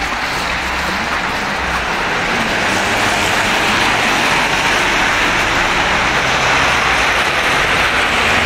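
Cars driving past on a wet, slushy road, their tyres hissing steadily; the hiss grows louder about two to three seconds in as a car comes by.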